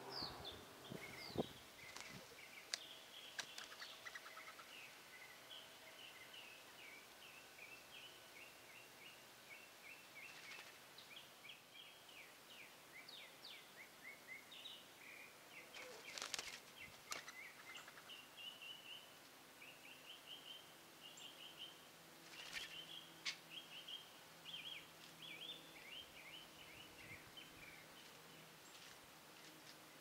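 Faint bird chirping: a steady run of short, high notes from songbirds around the yard. There are a few sharp clicks, with a brief flurry about halfway through as a red-bellied woodpecker lands on the feeder with its wings spread.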